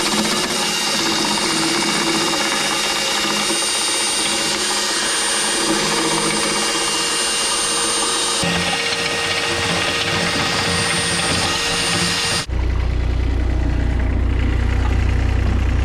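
Compact loader running during an attempt to hook a bucket on: loud, steady machine noise with a thin high whine. About twelve seconds in it cuts abruptly to a steady low engine rumble.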